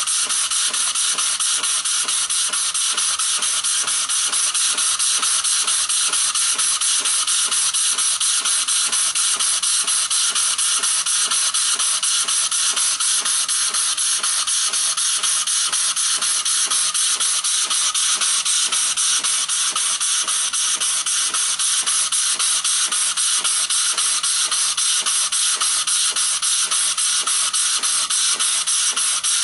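Small homemade prototype steam engine running steadily, its exhaust hissing in fast, even puffs.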